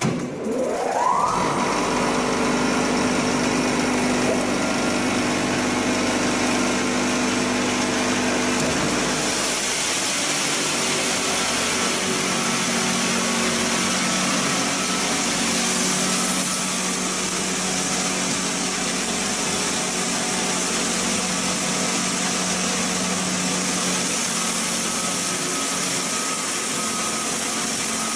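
Electric-motor-driven machines of a 500 kg/h animal feed pellet line starting up: a motor spins up with a rising whine in the first second, then the line runs with a steady, loud mechanical noise that changes character about nine seconds in.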